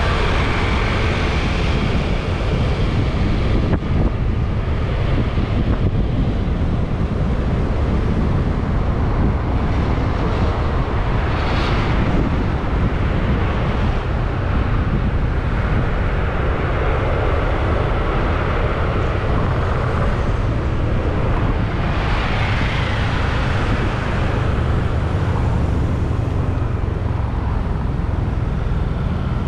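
Riding a motor scooter through town traffic: a steady wind rush on the microphone over the scooter's engine and road noise, with a brief louder rush about twelve seconds in.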